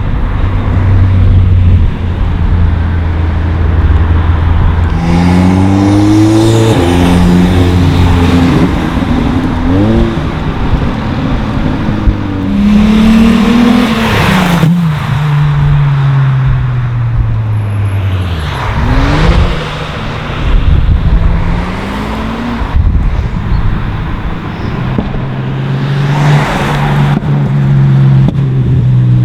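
Modified cars driving past one after another, each engine's pitch rising and falling as it accelerates and goes by, with about four loud pass-bys spread through.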